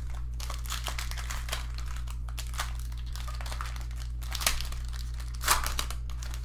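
A trading-card pack's foil wrapper crinkling and tearing as it is opened by hand. The crackle runs almost throughout, with two louder crinkles in the second half, over a faint steady low hum.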